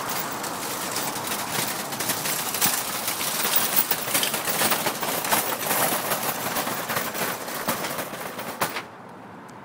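Loaded wire shopping cart rattling as it is pushed over pavement: a rapid, irregular clatter of metal clicks that cuts off suddenly near the end.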